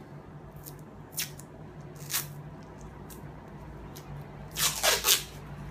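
Short rustles and crinkles of the cloth-and-paper wrap as the finished surgical pack is handled, a few scattered ones and then a louder cluster near the end.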